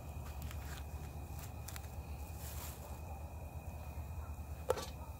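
Handling sounds as raw ground beef is tipped from a foam tray into a preheated cast iron Dutch oven: a few light clicks and taps, then one sharp knock near the end, over a low steady rumble.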